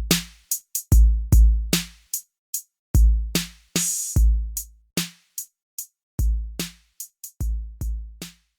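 Outro music: a sparse hip-hop drum-machine beat of deep booming kicks and short snappy hits, with no other instruments.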